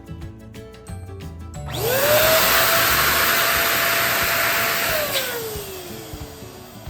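Electric balloon inflator switched on: its motor spins up with a quickly rising whine and runs loud and steady, blowing air, for about three seconds. Then it switches off and the whine winds down slowly as the motor coasts to a stop.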